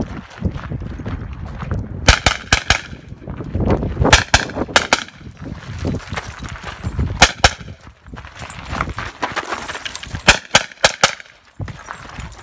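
Pistol shots fired in quick strings of about two to four, in four groups a few seconds apart.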